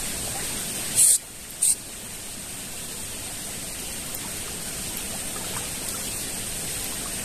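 Steady rushing noise of water flowing in a small shallow ditch, with two brief loud bursts of noise about a second and a second and a half in.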